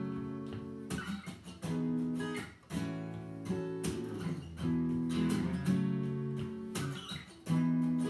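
Acoustic guitar strumming chords in a steady rhythm, a new strum about once a second: the song's instrumental intro before the singing comes in.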